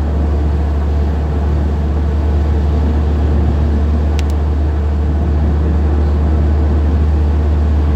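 Steady road noise inside a moving car on a wet highway: a constant low drone from engine and tyres with a hiss above it. A small click about four seconds in.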